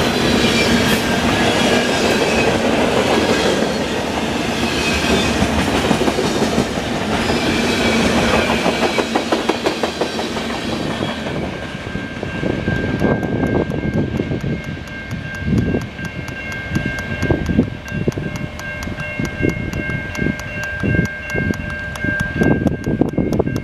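Freight cars of a passing train rolling by, their wheels clacking over rail joints with a heavy rumble. About halfway through, the rumble thins and a steady high ringing tone with a fast, even ticking joins the irregular wheel knocks.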